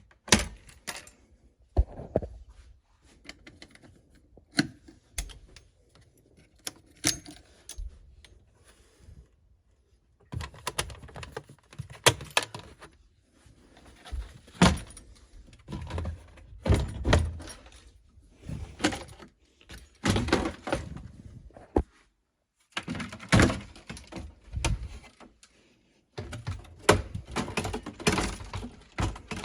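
Plastic RC car body being fitted onto the chassis and fastened with metal R-clips: a long run of clicks, knocks and light metallic clatter in clusters, with brief pauses.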